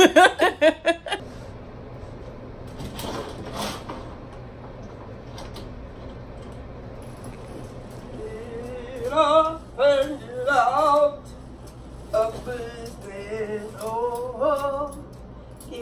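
A voice laughing or talking briefly at the start, then a steady low room hum, then a voice singing wavering, drawn-out notes from about eight seconds in.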